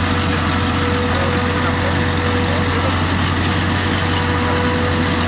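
Claas Jaguar 850 forage harvester running steadily as it chops maize and blows the silage into a trailer, with the Ursus 914 tractor pulling the trailer alongside. The engines drone constantly, with a thin steady whine over them.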